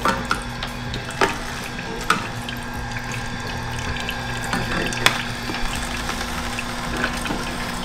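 Omega NC900 horizontal slow masticating juicer running with a steady motor and auger hum, with a few sharp cracks as pieces of turmeric and ginger root are crushed.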